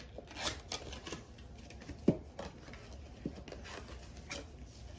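Scattered light clicks and rustles of a gift box and its packaging being handled and opened, with a slightly louder click about two seconds in.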